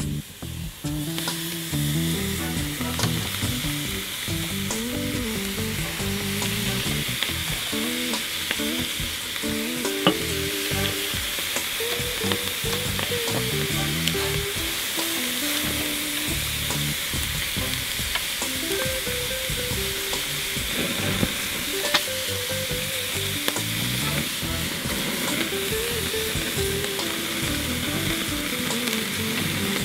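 Raw chicken thighs sizzling steadily as they sear on the hot grate of a charcoal kettle grill, directly over the coals, with a few sharp pops and ticks. The sizzle starts about a second in, as the first pieces go down.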